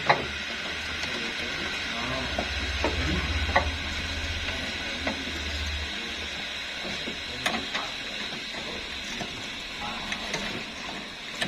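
Hand tools clicking and tapping on metal as the condenser's lower mounting bolts are undone: scattered sharp clicks over a steady hiss, with a low hum during the first half.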